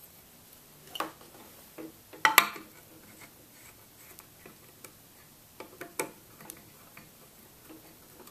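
Scattered light clicks and knocks as a sensor and a sheet-metal engine cover are handled on an aluminium plate, the loudest clatter about two seconds in.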